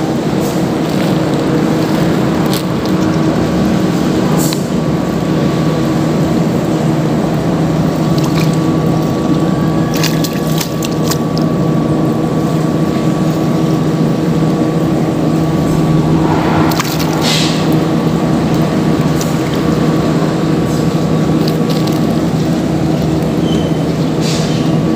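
A steady mechanical hum, a constant low drone with noise over it that does not change, broken by a few short clicks about ten and seventeen seconds in.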